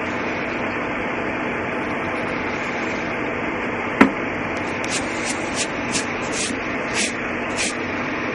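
Steady hiss of background noise throughout. About four seconds in there is a single sharp tap, followed by about six short scratchy strokes of a pencil on paper, roughly half a second apart.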